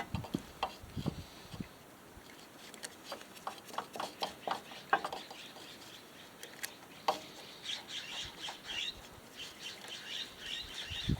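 Faint, scattered light clicks and taps of small mower parts being handled and fitted back on. Small birds chirp in the background through the second half.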